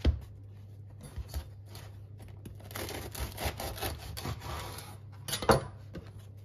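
Halves of a crusty whole-grain loaf handled on a wooden cutting board: the dry crust scrapes and rustles against the board, with a knock at the start and a louder knock about five and a half seconds in as a piece is set down.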